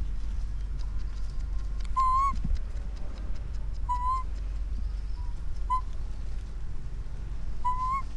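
Baby long-tailed macaque giving about five short, clear, high coo calls, each rising slightly at the end, spread a second or two apart: an infant calling for its mother. A steady low rumble runs underneath.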